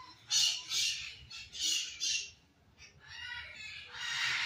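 Birds screaming with harsh, short calls in quick succession, squabbling among themselves. A longer stretch of calling comes near the end.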